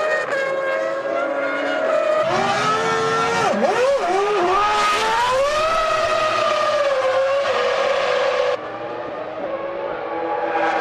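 Formula One cars' 3.0-litre V10 engines screaming at high revs. About three and a half seconds in, the pitch drops sharply in quick steps as the car downshifts under braking, then climbs again through the gears. About three-quarters of the way through, the sound cuts abruptly to a quieter engine note.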